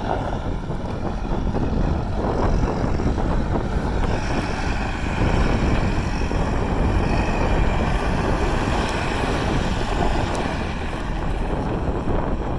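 John Deere 610B backhoe loader's engine running steadily under operation, its note rising about four seconds in.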